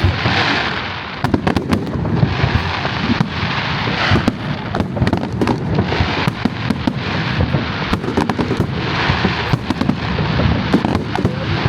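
Fireworks display: a dense barrage of rapid bangs, with spells of crackling near the start, about four seconds in and about nine seconds in.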